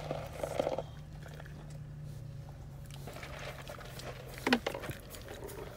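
Donkeys snuffling and mouthing at a hand through an open car window, with wet lip and chewing noises, over a steady low hum; one brief sharp noise about four and a half seconds in stands out as the loudest sound.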